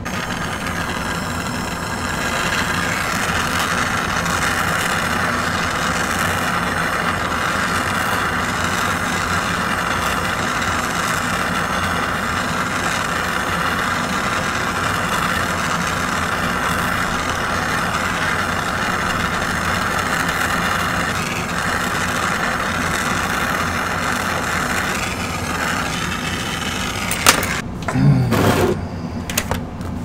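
Jeweller's soldering torch flame hissing steadily as it heats sterling silver to flow the solder at a joint. The hiss stops near the end, followed by a few sharp clicks.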